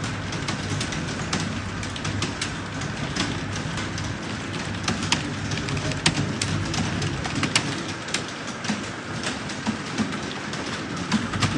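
Computer keyboard keys being typed on, a quick run of irregular clicks several a second over a steady background hum.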